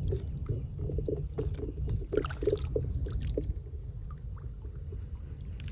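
Wind rumbling on the microphone, with a rapid run of short knocks and splashes, about four a second, during the first three seconds or so, loudest near the middle of that run.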